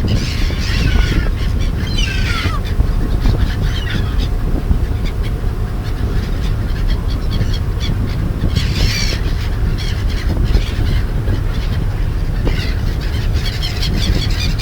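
Seagulls calling in several short bouts of harsh, falling cries, over a steady low rumble.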